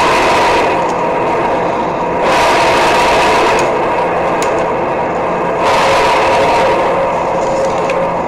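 Self-made sound-design track: a steady drone of several hum tones under a rushing noise, which surges louder about two seconds in and again near six seconds, each surge lasting over a second.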